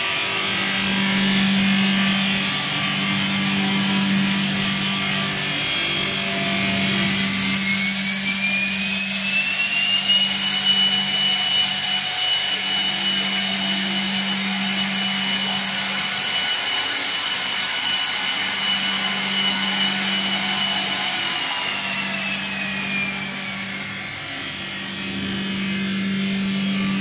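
LZ-300 multi-shaft mixer running with its high-speed disperser churning liquid in the stainless tank: a steady low motor hum under splashing. A whine rises in pitch about a quarter of the way in as the disperser is sped up, holds steady, then falls again near the end as it slows.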